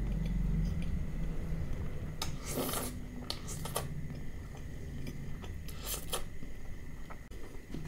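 Close-miked eating sounds: a bare hand squishing and mixing rice with curry on a plate in a few short wet rubs, over steady low chewing.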